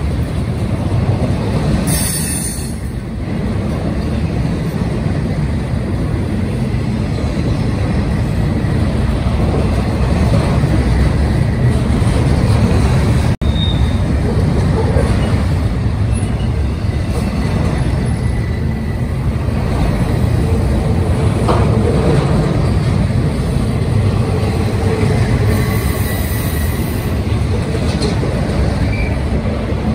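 Double-stack intermodal container well cars rolling past close by: a loud, steady rumble of steel wheels on rail, with a brief high squeal about two seconds in and again near the end.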